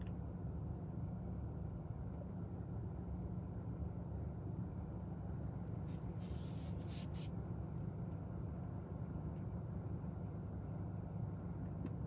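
Steady low hum inside the cabin of an Alfa Romeo Tonale stopped at a traffic light, with a few faint short clicks about six seconds in.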